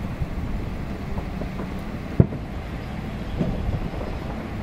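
Distant fireworks bursting: a few dull booms, the loudest about two seconds in, over a steady low rumble.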